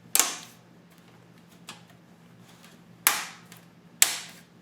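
Stamped metal I/O shield snapping into the rear opening of a cheap PC case as it is pushed in hard by hand: three sharp metallic snaps, one just after the start and two about a second apart near the end.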